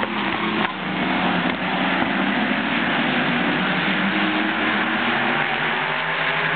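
Several winged sprint cars racing past, their engines blending into a continuous loud drone, with pitches rising and falling as the cars pass and rev.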